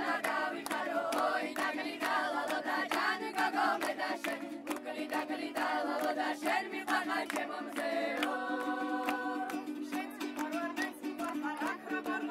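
Music: voices singing a wavering melody over a steady low drone, with regular percussive strokes; from about two-thirds of the way in, higher held tones join.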